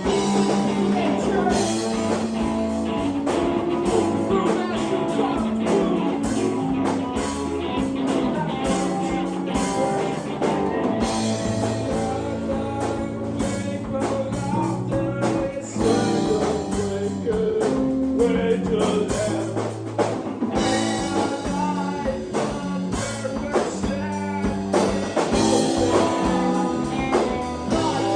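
Live band playing blues-rock with guitar and drum kit, with a singer.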